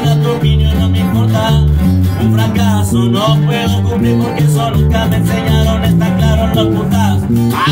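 Background music with a bass line stepping from note to note.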